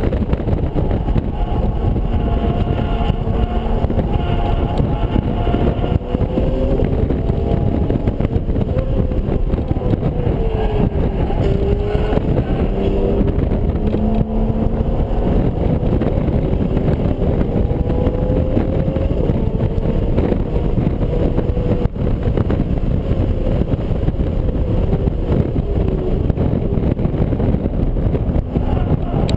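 BMW Z4 M Coupe's 3.2-litre straight-six engine heard from inside the cabin while the car is driven hard on a track lap. Its pitch climbs and drops again and again with throttle and gear changes, over a dense rumble of road and wind noise.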